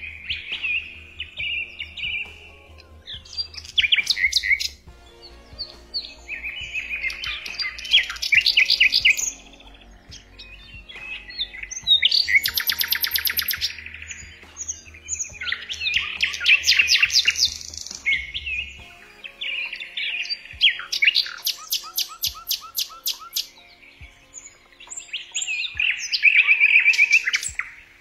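Songbirds singing: phrases of quick, high chirps and fast trills come one after another with short pauses between them.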